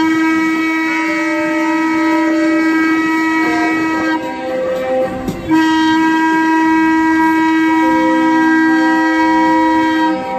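AIDAdiva's ship horn sounding two long, steady blasts of about four seconds each, with a short break between them, as the cruise ship departs.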